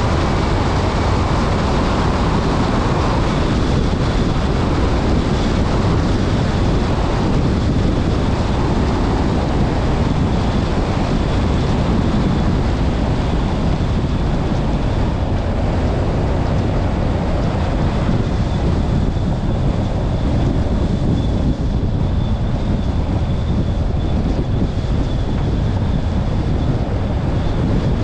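Car driving along a gravel road: steady tyre rumble and wind noise on the microphone, with no clear engine note.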